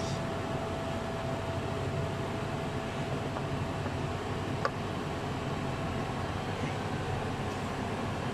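Steady mechanical workshop hum, like ventilation or distant machinery, with a faint steady tone that fades out about three seconds in and a single light click a little past the middle, as a part is handled on the engine.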